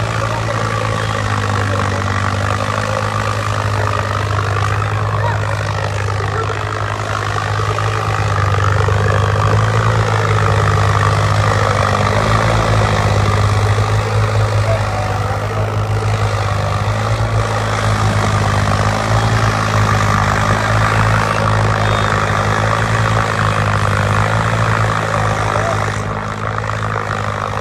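Massey Ferguson 8055 tractor's diesel engine running steadily with a deep, even note, working under a heavy pulling load. It grows slightly louder about a third of the way in and eases a little near the end.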